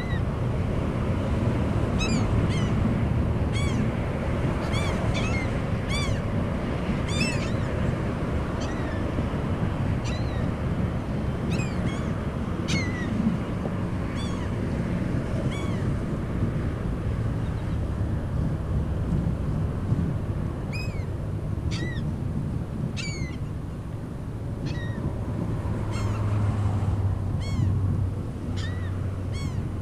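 Gulls calling overhead: many short, sharp cries, roughly one or two a second with a few brief lulls, over a steady low rush of wind on the microphone.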